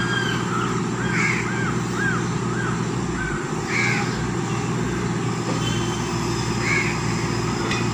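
Tata Hitachi excavator's diesel engine running steadily, with crows cawing repeatedly over it through the first half and once more near the end.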